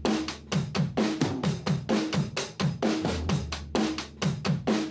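Fast drum-kit beat with kick drum, snare and hi-hat, opening a music track.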